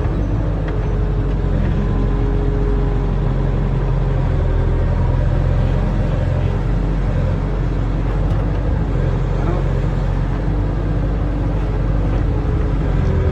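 Barge-mounted excavator's diesel engine running steadily, a low even hum with no sharp knocks.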